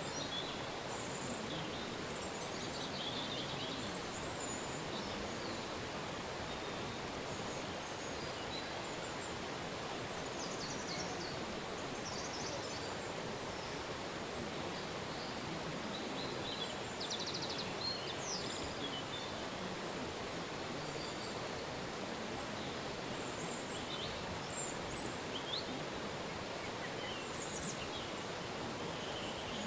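Steady rush of a flowing river, with many short, high bird calls and chirps scattered over it.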